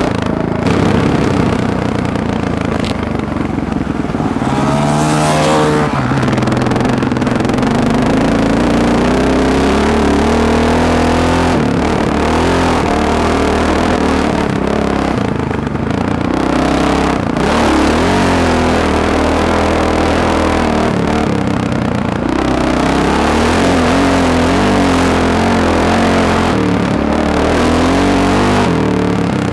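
Honda XR four-stroke single-cylinder dirt bike engine running under constantly changing throttle, its pitch repeatedly rising and falling as it accelerates and backs off, heard close up from the bike being ridden.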